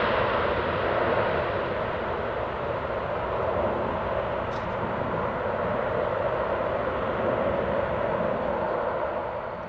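The four Allison T56 turboprop engines of a Lockheed C-130H-30 Hercules rolling out along the runway after landing, heard at a distance: a steady drone that eases slightly and fades out near the end.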